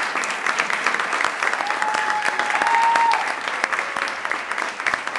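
Audience applauding at the end of a performance, with one long high note held over the clapping for about a second and a half, a little under two seconds in.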